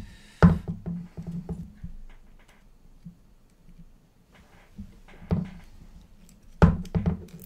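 Handling noise as a zip tie is threaded around the carbon-fibre arm of a racing quadcopter frame: a few sharp knocks, the loudest about half a second in and near the end, with light clicks and plastic rustling between.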